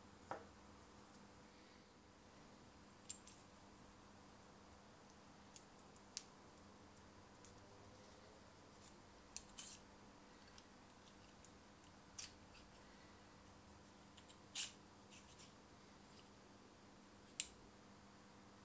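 Faint, scattered clicks and taps of the metal parts of a home-made lens spanner, its turned bodies and cross rods, being handled, over near-silent room tone.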